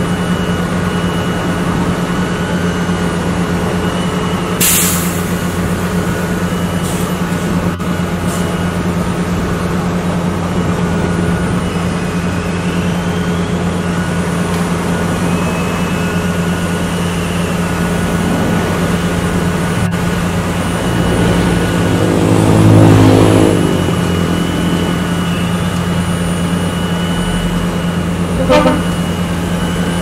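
Heavy diesel engine of a tracked asphalt paver running steadily while laying asphalt. A short burst of hiss comes about five seconds in; later a louder pitched sound swells and fades, and a brief toot follows near the end.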